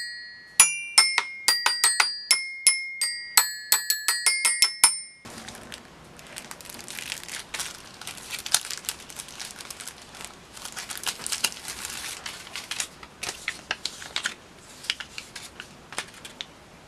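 Seven-note Peppa Pig toy xylophone struck quickly with a mallet, a run of bright ringing notes. After about five seconds it gives way to packaging crinkling and rustling in irregular bursts as it is handled.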